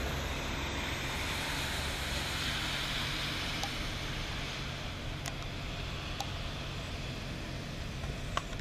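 MBTA commuter train hauled by an F40PHM-2C diesel locomotive pulling away: steady rushing rumble of the coaches rolling, with a low hum underneath. A few sharp clicks come in the second half.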